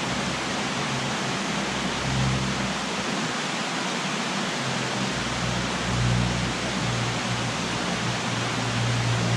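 Steady rushing of creek water, with low tones that come and go from about halfway in.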